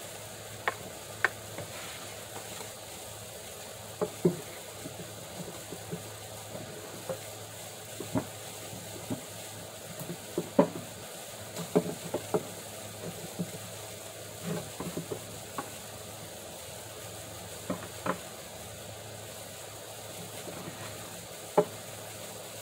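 Irregular light clicks and knocks of hand tools and wood being worked and handled at a workbench, over a steady background hiss.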